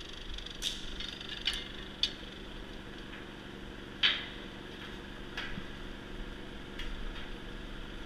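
Sharp metal clanks and knocks, about six of them, the loudest about four seconds in, as steel rods and a steel beam are handled, over a low steady engine hum.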